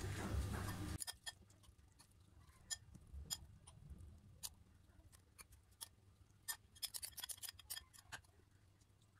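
Metal spoon clinking and scraping against a glass bowl and glass baking dish as chicken filling is spooned onto lasagna sheets: scattered small sharp clinks, thickest a little past the middle. For about the first second, dull rubbing of hands pressing pasta sheets into the dish.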